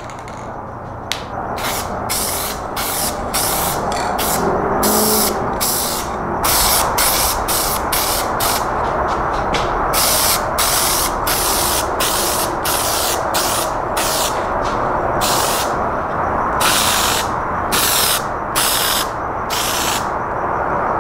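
Aerosol spray-paint can laying on a third coat of base colour in many short passes, each a hiss lasting a fraction of a second that stops sharply, more than one a second, over a steady lower background noise.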